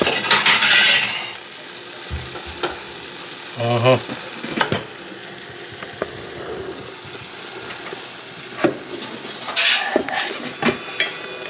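Chicken curry sizzling in a clay pot, with a utensil scraping and clinking against the pot as a piece of chicken is lifted out. The loudest scraping comes in the first second and again near the end, with scattered clicks between.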